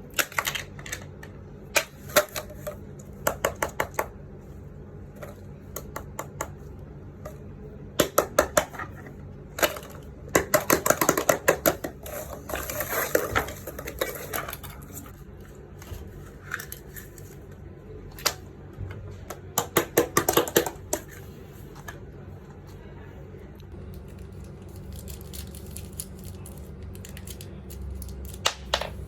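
Fidget toys being handled: repeated bursts of quick, small clicks and taps with short pauses between.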